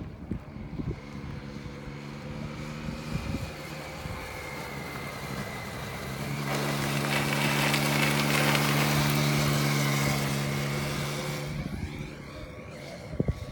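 Triumph Street Triple 675R's three-cylinder engine holding a steady note as the motorcycle approaches, passes close by leaned into a corner, and fades away. It is loudest a little past halfway. Wind buffets the microphone now and then.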